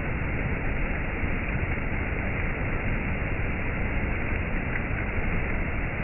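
Waterfall: falling water rushing steadily, an even noise with no breaks or changes.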